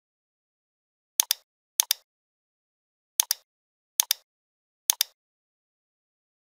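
Computer mouse button clicking five times, each click a quick double tick of press and release, with dead silence between.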